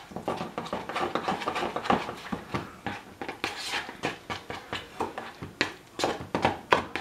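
A fork stirring and mashing deviled-egg filling of egg yolks, mayonnaise and mustard in a bowl: quick wet strokes and clicks of the fork against the bowl, several a second, falling into a steadier rhythm near the end.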